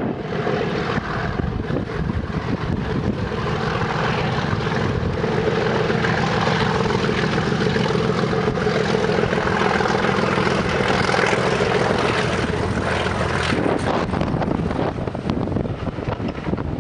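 English Electric Class 37 diesel locomotive passing with a train of coaches, its V12 engine running with a steady note that grows louder as it nears. About three-quarters of the way through the engine note cuts off, leaving the rumble of the coaches rolling by.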